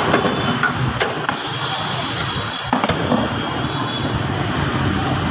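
Street traffic noise: a steady hum of passing motor vehicles, with a few sharp clicks or knocks.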